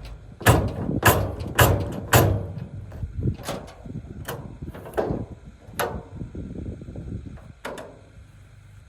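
A run of about a dozen heavy knocks and thuds at uneven intervals, each with a short ringing tail, loudest and closest together in the first two seconds and thinning out toward the end.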